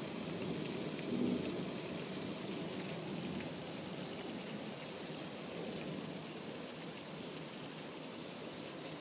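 Heavy tropical-style downpour: a dense, steady hiss of rain pouring onto foliage and waterlogged ground.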